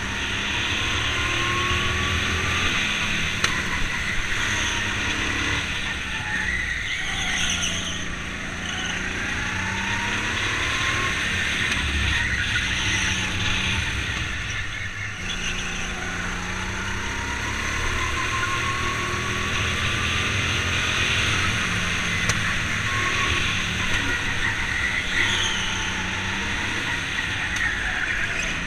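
Go-kart heard from on board, its motor's pitch rising several times as it accelerates out of corners, over steady tyre and wind noise.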